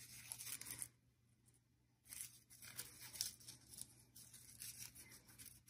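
Faint rustling and crinkling of crepe paper being accordion-folded by hand, with scratchy little crackles, dropping out to silence for about a second near the start.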